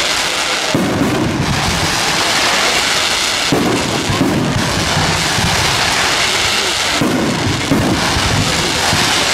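Aerial fireworks shells launching and bursting in a castillo display: a continuous dense hiss of burning comets and stars, with a deep rumbling burst about every three seconds.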